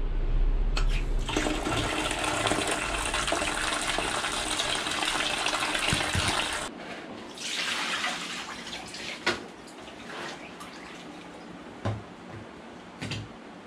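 Water pouring from a wall tap into a plastic basin of laundry, a steady hiss that stops about seven seconds in. Then quieter sloshing of clothes in the water with a few sharp knocks.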